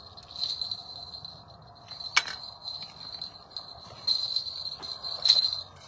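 A small bell on a fishing rod jingles in uneven bursts, with two sharper rings about two seconds in and near the end. Crickets chirp faintly underneath.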